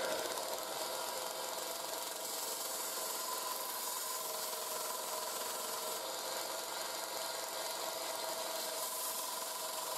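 Parkside PSDS 240 A1 combination bench grinder and belt sander running steadily, with a steel folding-saw blade held against the sanding belt: a steady motor hum under the hiss of metal being ground.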